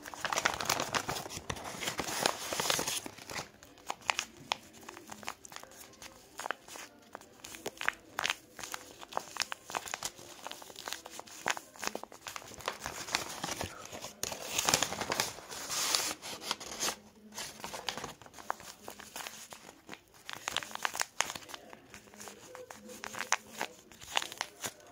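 Tape-wrapped paper squishy crinkling and crackling as fingers squeeze and crumple it, in irregular runs of crackles, with louder spells about two seconds in and around fifteen seconds in.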